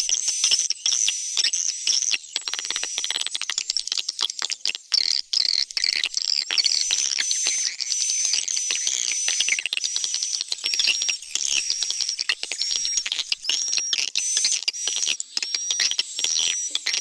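Swiftlet-house lure recording of edible-nest swiftlets: dense high twittering and chirping with short flat high whistle notes repeating about once a second in the second half. It combines an attraction call for drawing swiftlets into a swiftlet house with a roosting call for making them stay.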